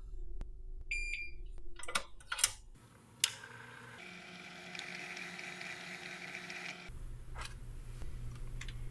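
A short electronic beep about a second in, followed by several sharp clicks and knocks and a steady hum with a high whine lasting about three seconds.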